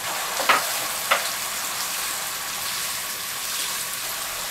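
Vegetables sizzling in a pot of hot masala as a wooden spatula stirs them, with two sharp knocks of the spatula against the pot in the first second or so.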